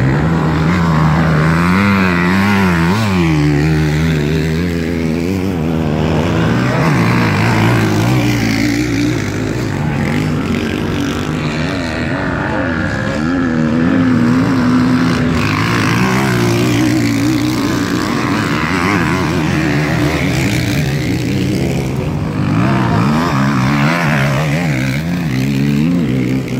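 Motocross bike engines revving around the track, their pitch rising and falling again and again as the riders accelerate and shift through the gears.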